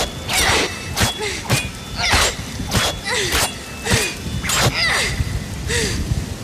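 Cartoon fight sound effects: a rapid run of sharp hits or claw slashes, about two a second, most followed by a short falling tone, over a steady hiss of heavy rain.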